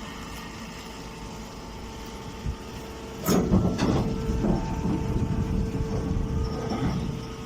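Baling machine running with a steady hum, then about three seconds in it breaks into louder clanking and rattling, which eases off near the end.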